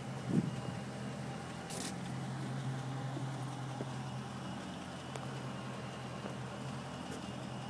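2012 Chrysler 300 SRT8's 6.4-litre HEMI V8 idling steadily, with a brief thump about half a second in.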